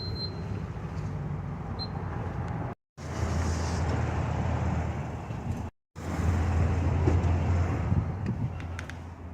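Steady low hum of a car's engine and road noise, heard in three short stretches joined by abrupt cuts, with a few light clicks near the end.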